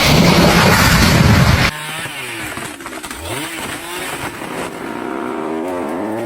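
A loud small engine running, which cuts off abruptly under two seconds in; quieter sounds with wavering tones follow.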